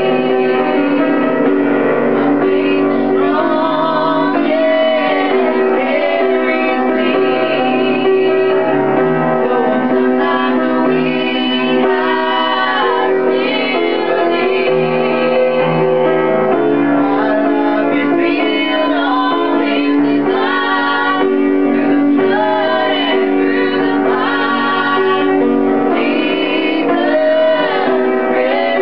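Two women and a man singing a Christian song in three-part harmony, high soprano, lower soprano and male lead, accompanied by piano.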